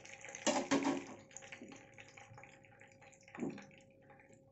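Hot oil sizzling and crackling in a frying pan, with a brief louder clatter about half a second in and a shorter one about three and a half seconds in.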